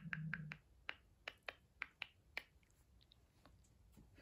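A cat's claws ticking on a laminate floor as it walks: sharp light clicks, a few a second, dying away after about two and a half seconds. A low steady hum stops about half a second in.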